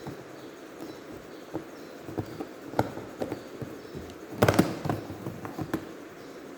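Small hard objects being handled on a table: scattered clicks and taps, with a louder clatter of several quick clicks about four and a half seconds in.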